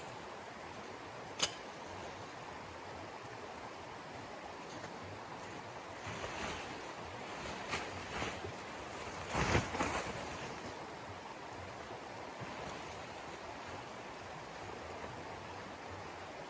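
Steady rushing of snowstorm wind, with a single sharp click about a second and a half in and a few rustling, handling sounds in the middle, the loudest of them near the middle.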